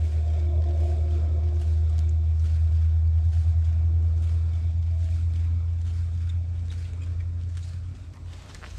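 A motor running with a steady low hum, easing off near the end.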